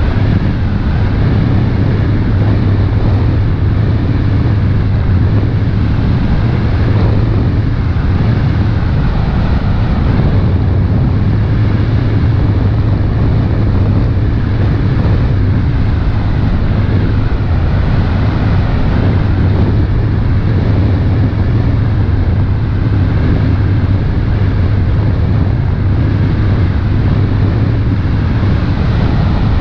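Passenger launch under way: its engine running at a steady cruise as a loud, unchanging low drone, mixed with wind noise on the microphone.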